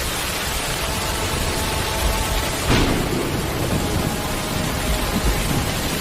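Heavy rain pouring steadily with a low rumble, swelling briefly about three seconds in.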